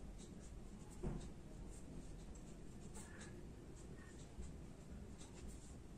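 Marker pen writing on paper: faint, short scratchy strokes coming irregularly, with a soft knock about a second in.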